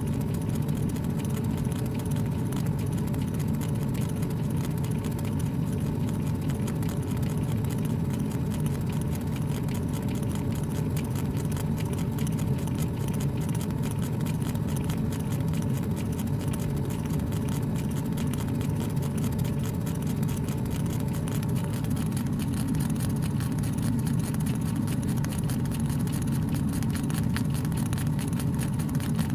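Laser engraver running while it engraves a pine board: a steady low machine hum.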